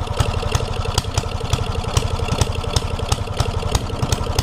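Old flathead 5 hp Briggs & Stratton single-cylinder engine with a homemade open header, running rough, with a sharp crack about three times a second. It will not rev up properly, which the builder puts down to the carburetor's drilled-out jet flooding it.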